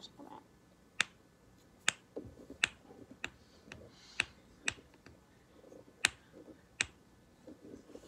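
Sharp snapping clicks, about eight at irregular intervals of roughly a second, from a hand squeezing and releasing a rainbow squishy stress ball.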